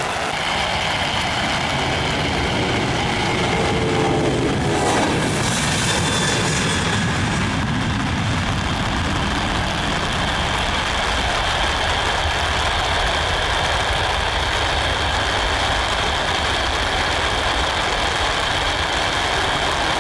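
Boeing 737-900ER's CFM56-7B turbofan engines at takeoff thrust: a loud, steady jet roar with a whining tone, sweeping past with a falling pitch about five seconds in as the airliner lifts off, then holding on as it climbs away.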